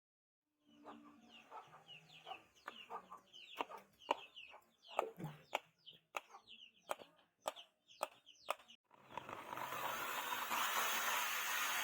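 A series of sharp taps and knocks, with short chirping clucks, likely chickens, mixed in. About nine seconds in, a loud, steady rushing noise starts, like a power tool running.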